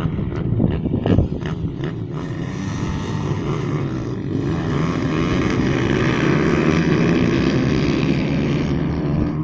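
A pack of pit bikes' small single-cylinder engines revving together, building about two seconds in and loudest past the middle, then dropping away near the end.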